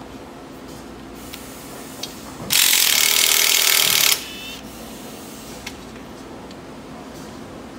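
A workshop tool run in one loud burst of about a second and a half, a hiss-like noise that starts and stops abruptly, with a few light clicks before and after it.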